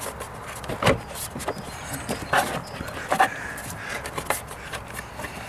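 Irregular plastic clicks, knocks and rubbing as the air intake housing is pushed down so its pegs seat in their rubber grommets, with short breathy noises between them.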